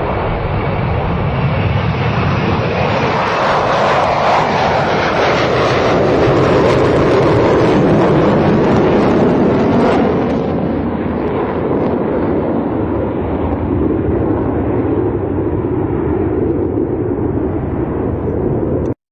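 Tupolev Tu-144 supersonic airliner's four jet engines roaring on landing approach and runway roll-out. The roar swells to its loudest near the middle, eases off, and cuts off suddenly near the end.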